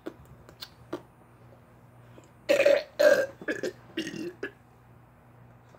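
A girl belching, a run of several burps starting about two and a half seconds in, the first two the longest. A few faint clicks come before them.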